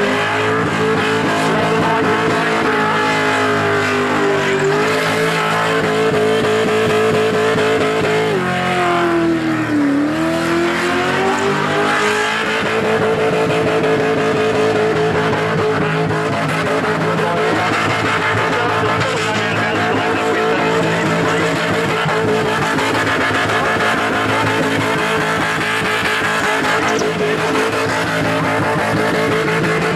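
Holden Commodore V8 held at high revs during a burnout, the rear tyres spinning and squealing against the pad. Around eight seconds in the revs drop briefly and then climb back to a steady high pitch.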